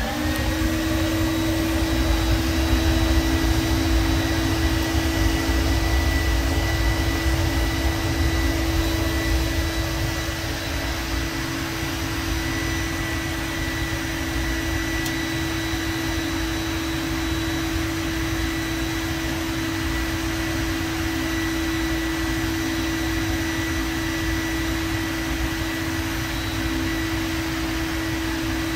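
Electric blower on a homemade waste-oil furnace, switched on and spinning up, then running with a steady hum as it forces air into the oil fire. A low rumble lies underneath, strongest in the first ten seconds.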